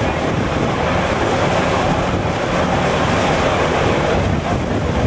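Wind rushing on the microphone over choppy sea, a steady noise, with a boat engine's low hum underneath.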